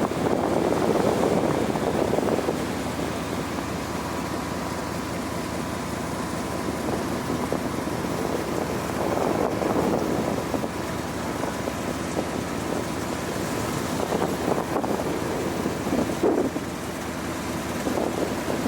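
Harbour ferry under way: a steady engine and water drone that swells and eases, with wind buffeting the microphone.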